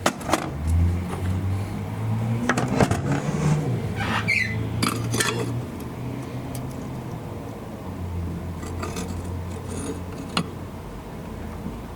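Small metal tools clinking and scraping against metal at a jeweller's bench, in irregular clicks and short ringing taps that are busiest in the first half. A low hum runs underneath.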